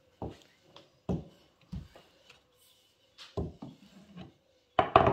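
Wooden rolling pin knocking and rolling on a wooden pastry board as thin dough is rolled out: a handful of short, dull knocks with gaps between, the loudest near the end.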